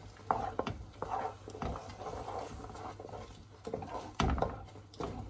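A spoon scraping and knocking against a large aluminium pot as thick halwa is stirred, in irregular clicks and knocks with a heavier thump about four seconds in, over the soft spluttering of the hot mixture after water has been added.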